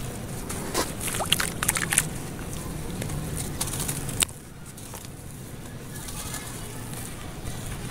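Dry sand-cement and charcoal lumps crushed by hand and falling into a wet basin: a run of gritty crackles and crunches in the first two seconds, a sharp knock about four seconds in, then softer crumbling.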